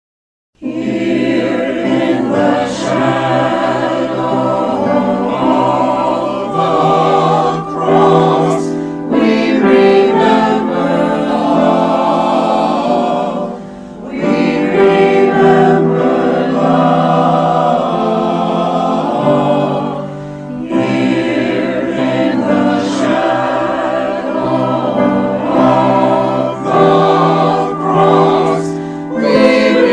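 Choir singing, coming in suddenly about half a second in, in long held phrases with short breaks between them.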